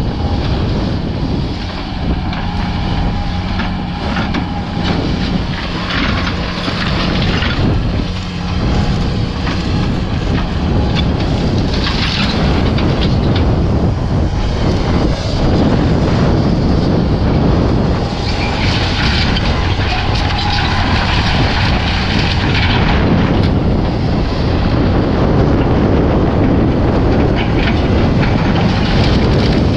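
Diesel heavy equipment running hard while demolishing a barn, with a steady engine drone and stretches of clattering and crunching debris, loudest about six, twelve and twenty seconds in.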